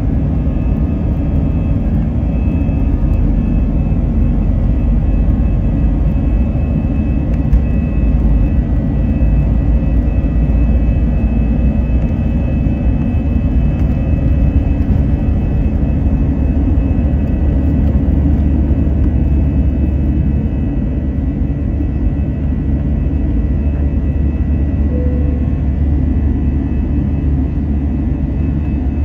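Airbus A320's jet engines at takeoff power heard from inside the passenger cabin: a steady, loud rumble with a thin, steady high whine over it, running through the takeoff roll and into the first climb.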